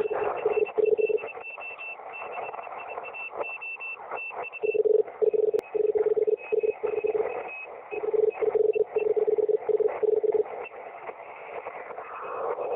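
Shortwave receiver tuned to 7022.5 kHz in the 40-metre amateur band, picking up Morse code (CW) from amateur station UR6ID. A low keyed tone sounds in dots and dashes over band hiss and static, with a second, higher-pitched Morse signal keying alongside it.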